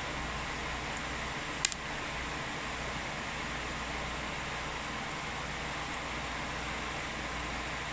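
Steady whirring hiss with a low hum underneath, like a room fan, and a single sharp click about one and a half seconds in.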